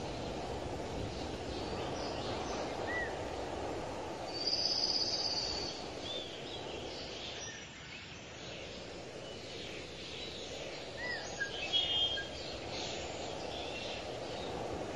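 Rural outdoor ambience: a steady low background hiss with scattered bird chirps and calls. A high trill about a third of the way in and a cluster of chirps about three quarters of the way in stand out as the loudest sounds.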